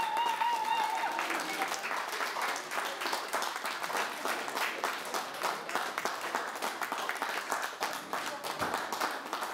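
A crowd of guests applauding with steady, dense hand clapping. The last held sung note of the dance song fades out about a second in.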